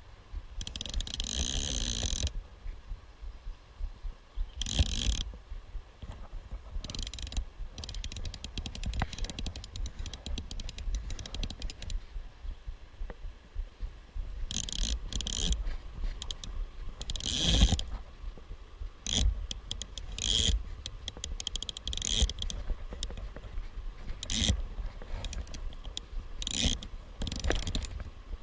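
Fly reel's click-and-pawl ratchet clicking in repeated bursts as fly line is pulled off or wound in, over a low rumble on the microphone.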